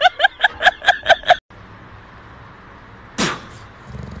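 A cat giving a fast run of short, high-pitched cries, about six a second, each rising and falling in pitch, that stops abruptly just over a second in. A single quick falling sweep follows about three seconds in.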